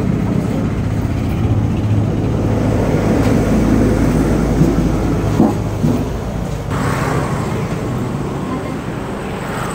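A steady low mechanical hum over a continuous rumbling noise, with a few short knocks around the middle.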